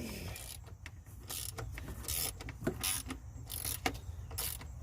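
A 1/4-inch ratchet with an extension being worked back and forth on a stiff T40 Torx bolt. Each back swing gives a short burst of ratcheting clicks, about one to two strokes a second.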